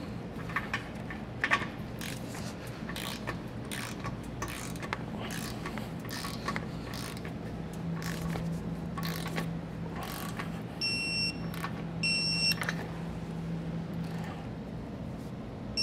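Torque wrench ratcheting in short strokes as bumper-beam bolts are tightened, with two short high electronic beeps close together late on: a digital torque wrench signalling that the set torque is reached.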